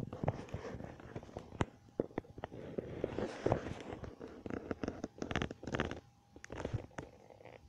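Irregular sharp clicks, taps and crackly rustles close to the microphone: handling noise as the camera is moved and fumbled. The densest stretch runs through the middle, and it dies away just before the end.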